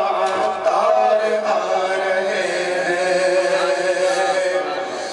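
Unaccompanied male voice chanting an Urdu naat (devotional poem) with melismatic, wavering notes, settling into one long held note about halfway through.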